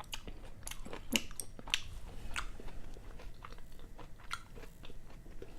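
Close-miked chewing with wet mouth clicks and smacks, most frequent in the first couple of seconds, then sparser.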